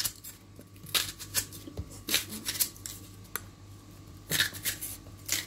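Kitchen knife slicing through a raw onion held in the hand, a run of irregular crisp cuts.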